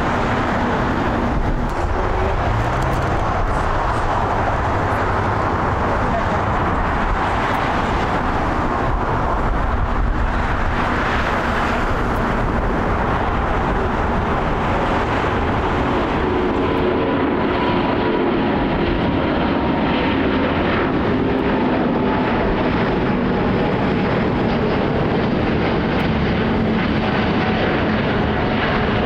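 Twin-engine Airbus widebody jetliner's engines running at high power during takeoff: a steady, loud roar with a high fan whine. The whine slowly falls in pitch and the roar loses its hiss about halfway through as the jet draws away.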